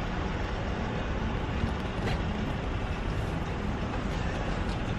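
Steady outdoor noise, a low rumble and hiss with no distinct events.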